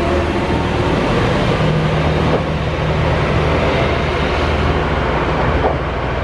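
Kyoto Tango Railway KTR700 series diesel railcar pulling out and moving away, its diesel engine running steadily under power.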